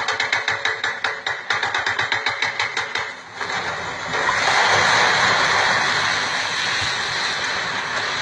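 Heavy machinery: fast, even mechanical knocking, about five or six strokes a second, stops about three seconds in. It gives way to a long rushing noise that swells and slowly eases.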